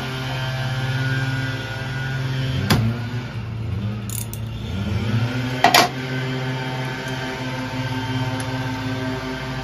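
A steady low mechanical hum with overtones runs throughout. Over it come two sharp metallic clinks, about three seconds apart, from a socket wrench on the spark plugs of a two-stroke snowmobile engine as the plugs are loosened and removed.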